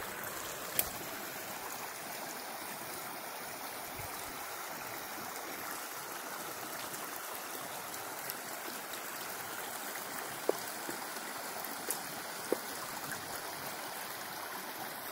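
Small brook running steadily as it spills through a gap in a beaver dam, with a few faint clicks.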